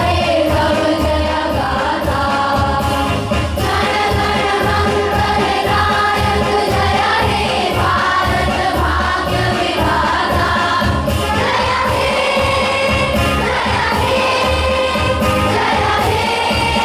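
Music with group singing over a steady beat.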